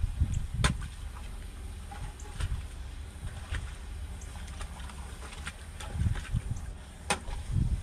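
A spade digging in the trench: sharp scraping strikes about every second or two, over a steady low rumble.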